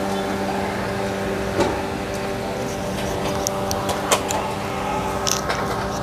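A steady mechanical hum holding one even pitch, with a few sharp clinks over it, about a second and a half in and again about four seconds in.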